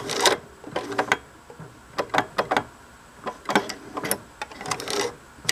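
Singer 534 sewing machine mechanism cycling with a series of irregular clicks and knocks, some coming in quick pairs, as the rotary hook comes around and bangs against the needle. This is the sign of hook-to-needle timing that is off, which the owner suspects after replacing the hook gear.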